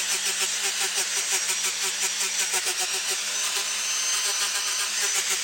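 A tool working wood: a continuous hissing, grinding noise that pulses evenly about five times a second.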